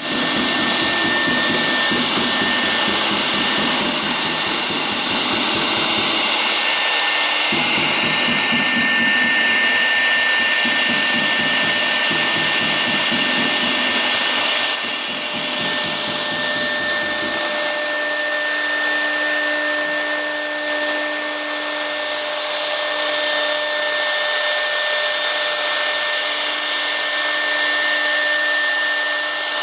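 CNC router spindle cutting MDF: a steady high whine over the noise of the bit milling the board. A lower pulsing noise underneath stops about two-thirds of the way through, leaving a steady low hum beneath the whine.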